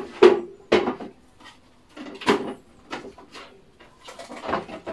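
Parts of a Breville Juice Fountain Max juicer being handled and taken apart: a series of sharp plastic and metal clicks and knocks, the loudest about a quarter second in and again about two seconds in.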